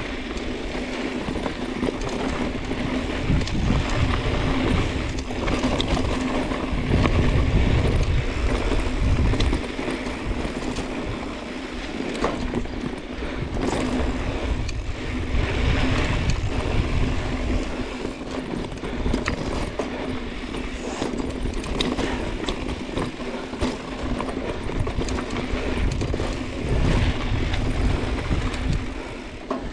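Mountain bike riding down a dirt trail: tyres rolling over dirt and rock, the bike clattering over bumps, and wind rushing on the camera microphone in heavy low gusts.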